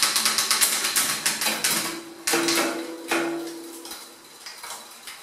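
Shimano SLX rear hub's freehub ratchet clicking rapidly as the rear wheel spins freely on the stand. There are louder surges a little past two and three seconds in, a low hum under the middle, and the clicking fades towards the end.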